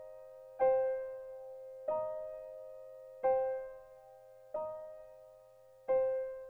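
Background music: slow, gentle piano chords, a new chord struck about every 1.3 seconds and left to ring and fade before the next.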